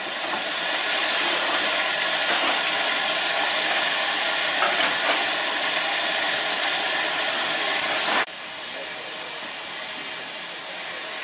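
Steam hissing steadily from a standing steam locomotive, GER Class Y14 No. 564. About eight seconds in it cuts suddenly to a quieter, steady hiss.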